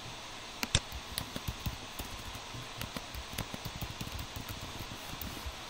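Typing on a computer keyboard: a run of irregular light key clicks, with a few louder ones within the first second or so, over a faint steady hiss.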